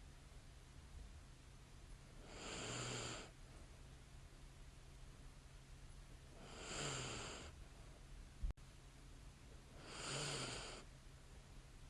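A sleeping woman's light snoring: three slow breaths about four seconds apart, each lasting about a second with a soft low buzz. A single sharp click sounds a little past the middle.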